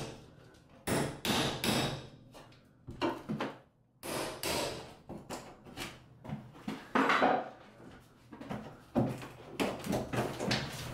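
Claw hammer striking a steel flat pry bar (Super Bar) driven in behind the edge of a fiberglass shower enclosure, loosening its nailed flange from the wall studs. The blows come in irregular groups with short pauses between them.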